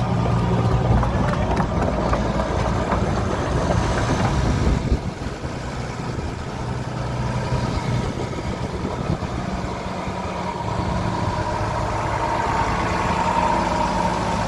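Diesel engine of a Demag DF 140 C asphalt paver running steadily. It drops in level about five seconds in and slowly builds again, with a higher tone coming up near the end.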